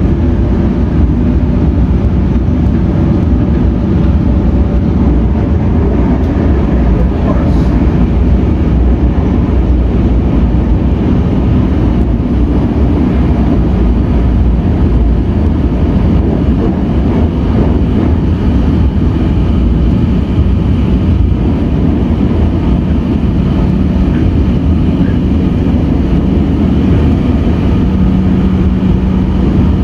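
Comeng electric train running along the line, heard from inside the carriage: a steady rumble of wheels on rails with a low, steady hum underneath.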